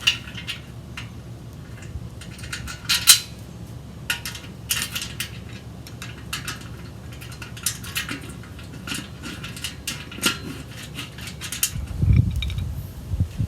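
Metal grill hardware clinking and clicking: bolts and washers knocking against a steel leg and leg cup as the bolts are fitted and screwed in by hand, in irregular light taps with the loudest clink about 3 seconds in. Duller thumps of the parts being handled near the end.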